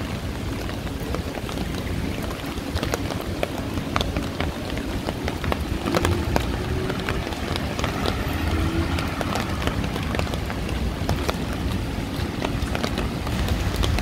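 Heavy rain falling steadily, with many sharp close drop hits over a low rumble of street traffic.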